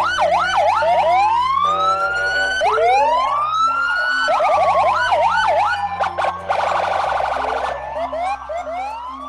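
Electronic police-siren sound effect of a toy police car: long rising-and-falling wails alternate with quick yelping sweeps, with a fast warble partway through, fading near the end.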